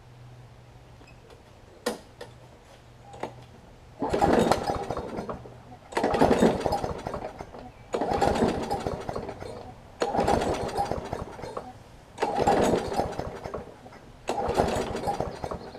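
Briggs & Stratton Classic push-mower engine being pull-started: six recoil pulls about two seconds apart, starting about four seconds in. Each pull cranks the engine briefly and dies away without the engine catching and running.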